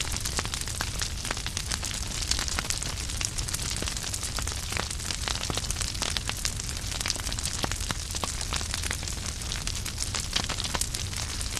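Wood fire burning in a fireplace, crackling with many sharp pops and snaps over a steady hiss and a low rumble.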